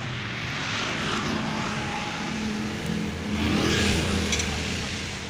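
A motor vehicle's engine running, swelling as it passes and loudest about four seconds in.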